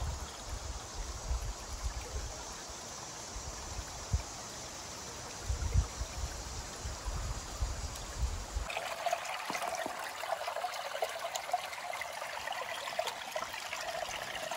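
Shallow rocky creek trickling over stones: a steady watery hiss with low rumbles through the first part, changing about two-thirds of the way in to a closer, brighter trickle full of small splashy ticks.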